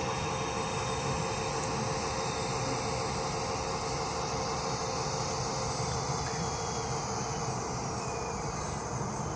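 HO-scale model air-conditioning generator car with its cooling fan running, a steady whirring hiss from the DCC sound and fan unit.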